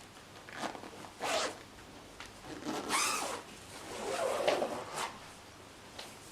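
A run of short rasping sweeps, the longest and loudest about three seconds in, followed by a light click, as of something being zipped or slid and handled.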